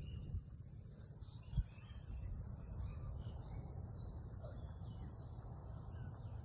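Many small birds chirping and twittering over a steady low rumble, with a single thump about one and a half seconds in.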